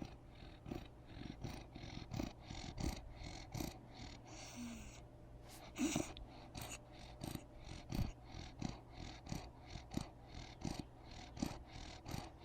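A newborn baby snoring in his sleep: quick, regular rattling pulses of breath, about three a second, with a short hiss about four seconds in and a louder breath near six seconds.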